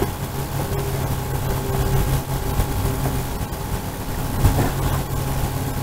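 Steady low mechanical hum, like an engine running, under outdoor background noise, with a short thud about four and a half seconds in.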